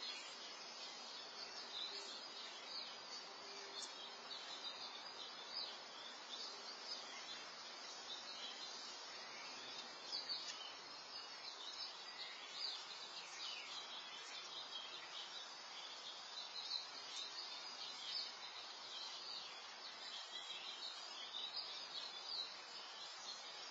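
Faint outdoor ambience: small birds chirping and twittering on and off over a steady background hiss.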